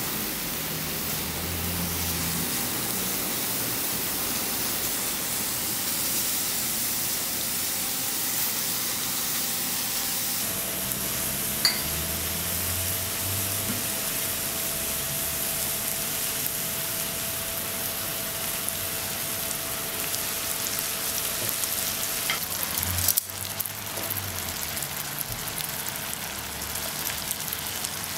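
Apple slices sizzling in melted, caramelising sugar in a frying pan, a steady hiss throughout. There is a single sharp click a little before halfway.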